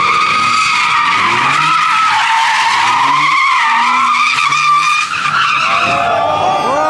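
Tyres squealing in one long continuous screech as a vehicle slides and spins, the pitch wavering slightly, until it trails off near the end.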